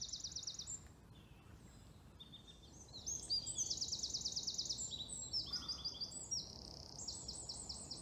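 Small songbirds singing: bursts of quick, high repeated notes and trills, quieter for a couple of seconds after the start, then almost unbroken overlapping song from about three seconds in.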